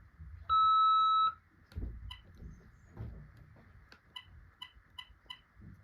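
BT cordless phone beeping while a handset is being registered to its base: one loud, steady beep lasting under a second about half a second in, then short key-press pips, a single one and later a quick run of four.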